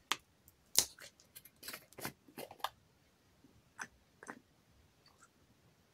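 Light clicks and taps of a brush stirring paint and water in a small pot: a quick run of them over the first three seconds, then two more about four seconds in.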